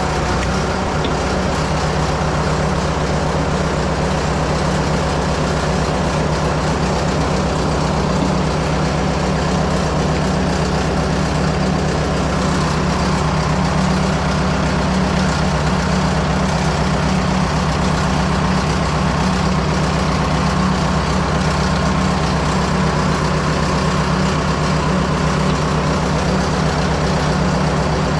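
Fordson Major tractor engine idling steadily, driving the backhoe's hydraulic pump through the PTO.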